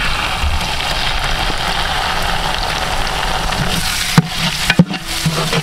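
Sliced onions and green chillies sizzling steadily in hot oil in a large metal pot, with a couple of sharp knocks near the end as a ladle stirs against the pot.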